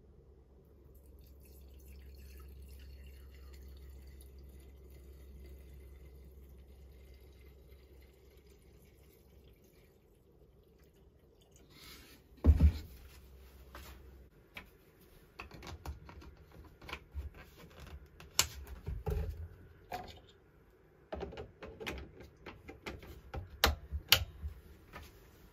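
Aspen 2 two-stroke fuel pouring from its plastic bottle into a Stihl MS251 chainsaw's fuel tank, a faint liquid trickle. About halfway there is one loud knock, followed by a series of plastic clicks and knocks as the saw is handled.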